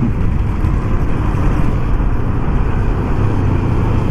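Steady wind rush on the microphone mixed with the running engine and road noise of a moving motorcycle.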